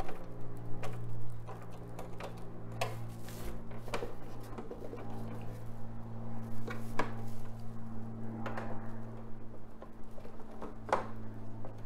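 Hard plastic lower-fairing parts being handled on a workbench, giving a scattered series of clicks and knocks as they are turned over and set down, with a metal tool picked up about six seconds in. A steady low hum runs underneath.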